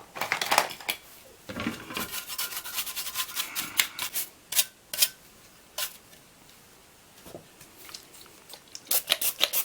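Rapid scrubbing of a graphics card's circuit board while it is cleaned with isopropyl alcohol: a run of short scratchy rubbing strokes that stops around six seconds in and starts again near the end.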